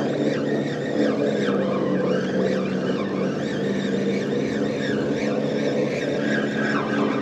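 Spinning fishing reel being cranked to bring in a hooked fish: a steady whirring hum with a higher whine that wavers in pitch as the cranking speeds up and slows.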